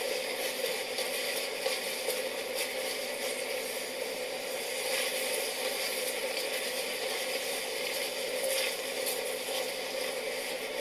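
Steady sizzling of a pot of aosa (sea lettuce) cooking down for tsukudani, with a few scattered light clicks.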